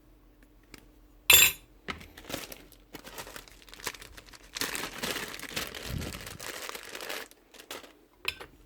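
Parts of a disassembled orbital sander being handled on a workbench: a sharp knock about a second in, a few small clicks, then about three seconds of rustling noise.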